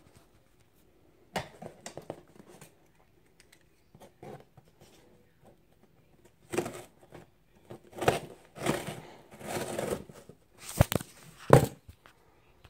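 Packaging being handled and opened: intermittent rustling and tearing, busier in the second half, with a couple of sharp knocks near the end.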